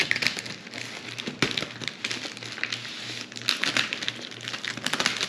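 Packing tape and plastic wrapping on a parcel crinkling and crackling as they are cut open with a small knife, in many quick, irregular crackles.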